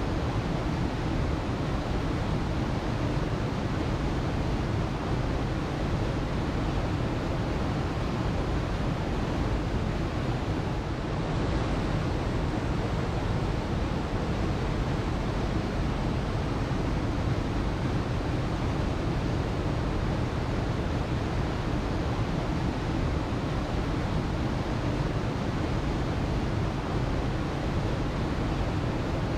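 Waterfall: a steady, even rush of falling water, strongest in the low range.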